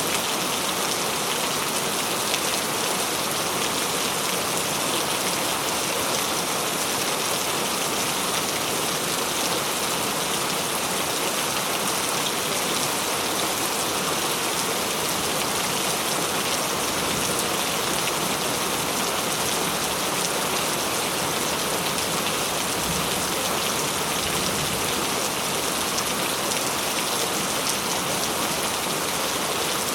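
Steady heavy rain falling, a dense, even hiss of drops on surfaces with no distinct thunder or other events.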